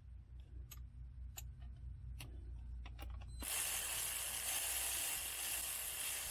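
Scattered clicks of a ratchet wrench being worked while tightening a fastener under a car. These are followed about halfway through by a loud, steady hiss that lasts about three seconds and cuts off.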